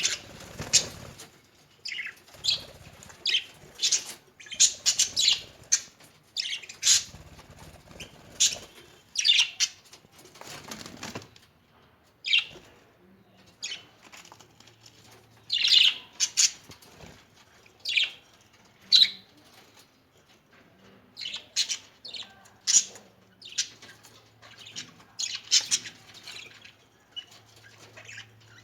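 A group of caged budgerigars chirping and squawking in short, irregular calls, with occasional bursts of wing flapping.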